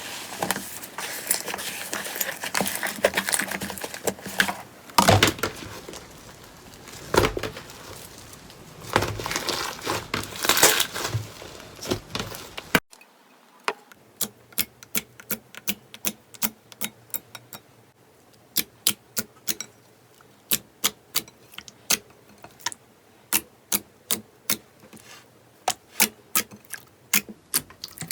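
Slime being squeezed and worked by hand, with dense crackling and squishing for about thirteen seconds. After an abrupt cut come crisp sharp clicks and pops, about two a second.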